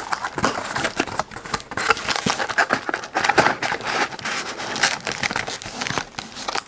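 Foil Pokémon booster pack wrappers crinkling and rustling as a stack of packs is handled and arranged in its cardboard display box, with many small irregular crackles.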